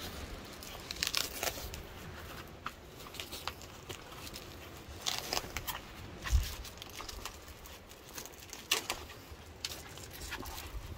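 Rustling and scattered clicks of awning fabric, cord and a strap being handled as a bamboo pole is strapped under the awning's edge, with a dull knock about six seconds in.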